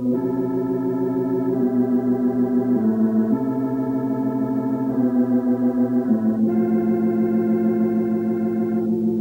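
Background music of slow, held chords that change every second or so, with a steady pulsing tremolo.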